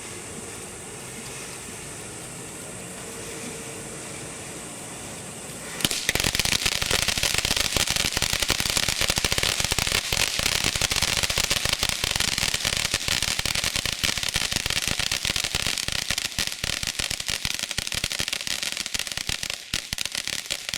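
Consumer firework crackling: a sudden start about six seconds in, then a dense, rapid crackle of many small pops that keeps going and stops near the end.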